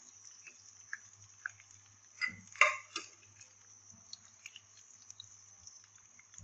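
Cubed potatoes frying in hot ghee in a nonstick pan: a steady high sizzle dotted with small crackles and pops, with a short clatter about two and a half seconds in.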